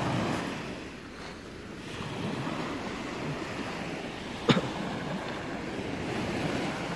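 Sea surf washing steadily on the shore, with some wind on the microphone and one sharp knock about four and a half seconds in.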